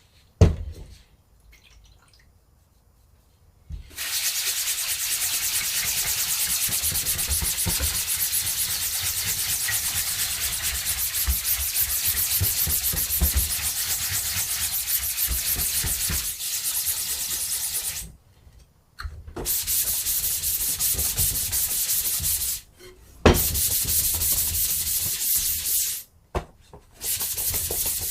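A handheld spray gun hissing on a silkscreen during plate making. One long burst of about fourteen seconds starts about four seconds in, then three shorter bursts follow, each starting and stopping sharply.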